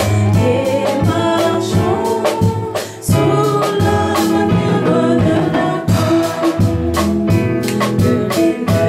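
Gospel hymn sung by a woman's voice over a live church band, with a drum kit keeping a regular beat under sustained instrument chords. There is a brief dip near three seconds, between phrases.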